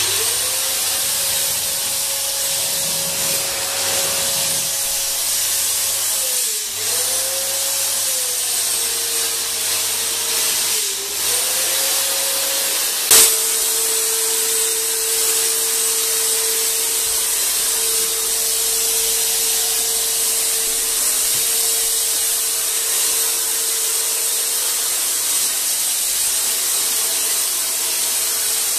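Handheld electric ULV cold fogger running and spraying disinfectant mist: a steady motor whine over the hiss of the spray. The whine sags and recovers twice, and there is one sharp click about halfway through, after which the whine runs slightly lower.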